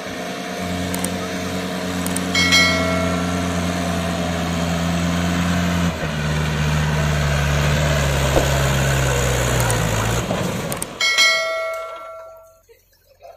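Mahindra 575 DI tractor's four-cylinder diesel engine working hard as it hauls a loaded trailer up a steep dirt ramp; its pitch drops about six seconds in and keeps sinking as it slows under the load, then the engine sound cuts off about ten seconds in. A bell-like ding rings out twice, about two seconds in and about eleven seconds in.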